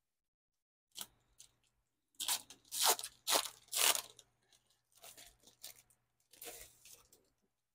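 Packaging crinkling and rustling as the A4 photo set is unwrapped and handled, with a run of loud crackles about two to four seconds in, then softer rustling.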